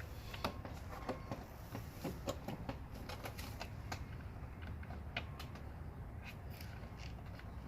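Irregular light clicks and taps of air intake parts being handled and pushed into place, over a steady low hum.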